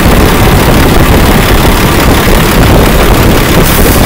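Semi truck's diesel engine idling steadily, driving the power steering pump while the flow tester's restriction loads it toward 2,000 PSI.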